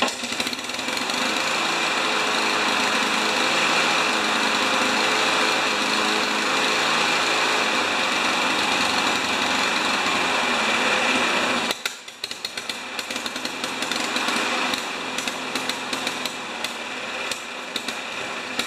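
Honda GCV160 single-cylinder lawn mower engine running fast and steady. About twelve seconds in it drops to a quieter, uneven run with irregular crackling.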